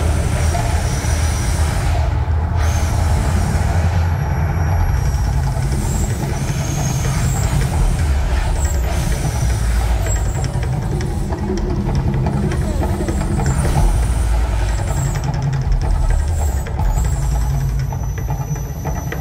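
Mirage volcano show eruption: a loud, deep continuous rumble with hissing bursts over it.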